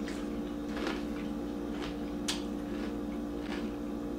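A mouthful of Sour Patch Kids cereal being chewed: a few scattered crunches over a steady hum.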